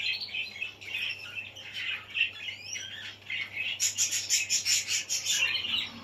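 Caged canaries chirping, short high calls scattered throughout, with a quick run of sharp chirps starting about four seconds in.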